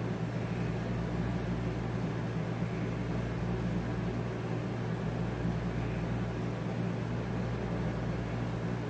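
Air conditioner running noisily: a steady low hum with an even hiss over it.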